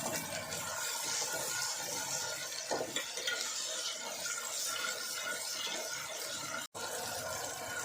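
Tomato sauce and ginger-garlic paste sizzling in hot oil in a pan while being stirred, as a steady hiss with a few light scrapes. The sound cuts out for an instant about a second before the end.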